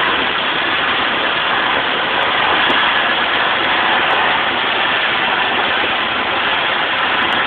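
Steady rush of wind and road noise from riding in the open bed of a 1999 Dodge Dakota pickup driven at high speed, the wind blasting the phone's microphone.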